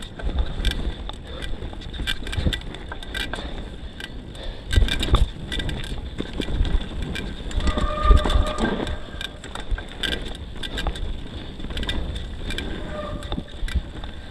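YT Tues downhill mountain bike riding down a dirt trail: tyres rolling on the dirt, the bike rattling in quick clicks, with heavier thumps over bumps about five and eight seconds in.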